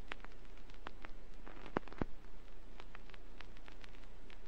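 Vinyl record surface noise from a record player's stylus: a steady hiss with scattered small clicks and crackles, and two louder pops about two seconds in.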